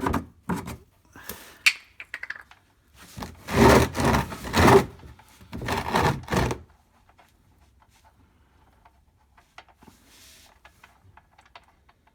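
Hand and rag handling noise as a drain plug is unscrewed from an engine oil pan by hand: irregular rubbing, scraping and knocking, loudest in a few bursts over the first seven seconds, then a few small clicks.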